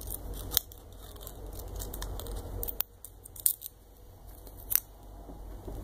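Fingers picking at and peeling the protective backing off a piece of thermal transfer tape, making irregular sharp clicks and crackles.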